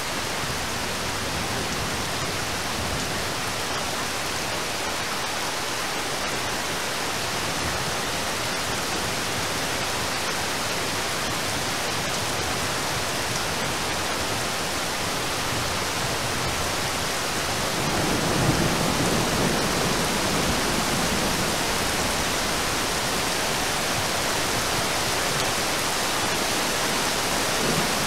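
Heavy rain falling steadily on a river's surface, an even, dense hiss. About two-thirds of the way through, a low rumble swells for a few seconds and fades back under the rain.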